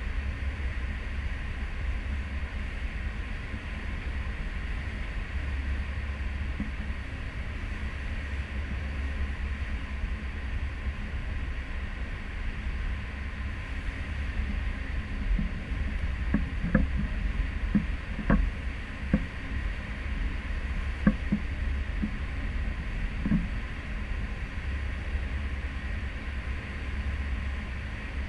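Cruise ship under way at sea, heard from a stern balcony: a steady low rumble with a rushing hiss over it. A few light knocks come between about 16 and 23 seconds in.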